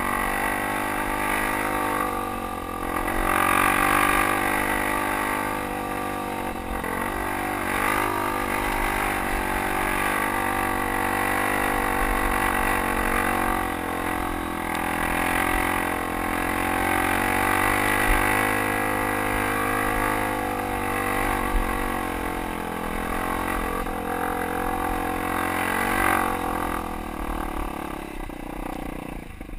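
Dirt bike engine running as the bike rides up a rough, rocky trail, its pitch rising and falling with the throttle, dropping off near the end.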